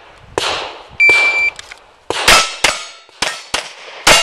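An electronic shot timer beeps about a second in. About a second later a handgun fires a rapid string of about six shots, and the hits ring on steel target plates.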